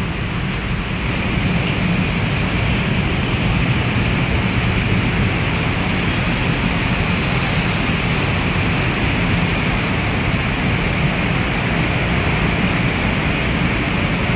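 Bangkok MRT Yellow Line monorail train pulling into the station, a steady rushing noise with a low rumble from its rubber tyres running on the concrete guideway beam.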